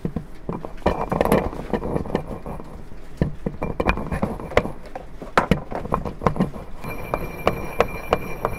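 Ceramic pestle crushing orange tablets in a ceramic mortar: irregular knocks of the pestle on the bowl mixed with gritty grinding and scraping as the tablets break down to powder.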